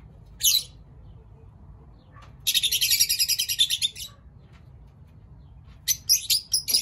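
Small cage birds chirping: one short chirp, then a rapid chattering burst of about a second and a half, then a quick run of sharp chirps, about six a second, near the end.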